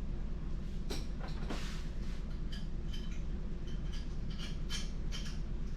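A steady low mechanical hum runs throughout, with scattered light clinks and taps of metal parts being handled, about seven at irregular intervals.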